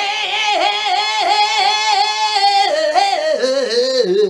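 A man singing French lyrics in a strangled, nasal hard-rock voice, holding a high line whose pitch wavers about three times a second. Near the end the voice steps down to a lower held note.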